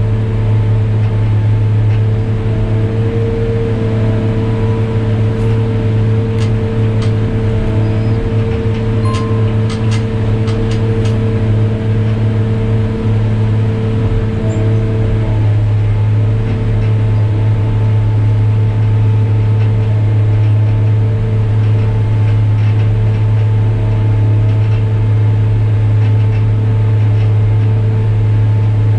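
New Holland RG140B motor grader's diesel engine running steadily with a constant low hum. A few light clicks come through between about five and eleven seconds in.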